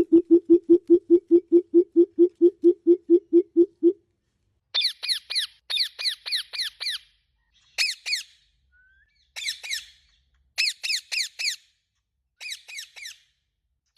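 Odd bird calls: a fast run of low pulsed notes, about six or seven a second, for the first four seconds, then short groups of four or five quick, high, falling squeaky notes repeated about once a second.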